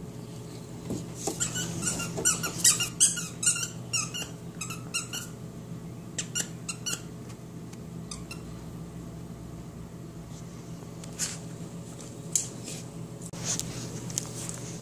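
Squeaky dog toy being chewed by a Labrador: a quick run of sharp, high-pitched squeaks lasting about four seconds, then a few more scattered squeaks.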